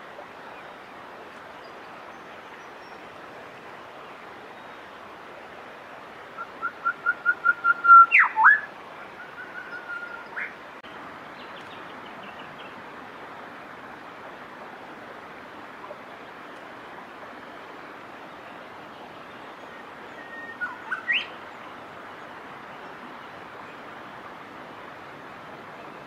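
Grey shrike-thrush calling: a quick run of repeated whistled notes that grows louder, ending in sharp whistles that sweep down and up, then a few softer notes and a rising whistle. A shorter phrase with a rising whistle comes near three quarters of the way through, over a steady hiss.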